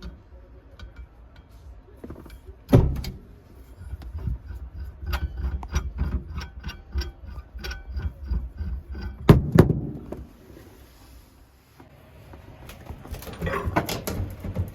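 Light metallic clicks and clinks of tools and fittings being handled during faucet replacement work. There are two sharper knocks, one about three seconds in and one about nine seconds in, and a rougher scraping and rustling near the end.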